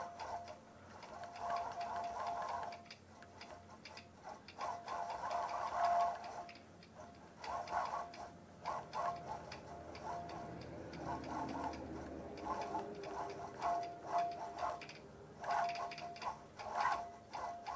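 Longarm quilting machine stitching slowly in free-motion, the needle clicking rapidly in short runs over a steady motor hum. The stitching starts and stops every second or two as the head is guided around the outlines.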